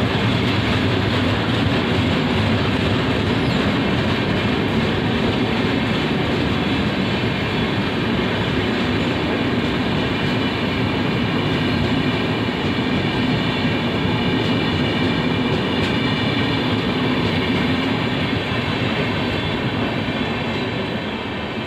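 Express train's air-conditioned passenger coaches rolling past, a steady loud rumble and rattle of wheels on the rails, easing off near the end as the last coaches go by.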